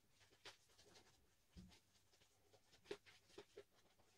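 Faint brushing strokes of a synthetic shaving brush working lather over the face and beard stubble, a few short scratchy swishes at an uneven pace.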